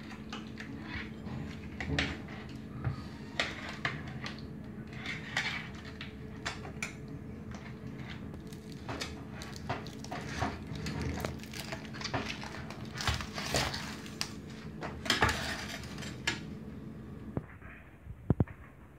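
Metal utensil scraping and clinking against a metal baking tray as a whole grilled fish is turned over, many short irregular clicks and scrapes over a steady low hum. A few sharp clanks near the end.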